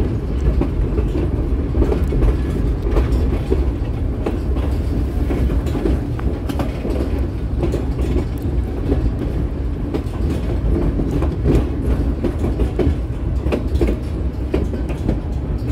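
White Pass railway passenger car rolling along the track: a steady low rumble of wheels on rails, broken by frequent irregular clicks and knocks.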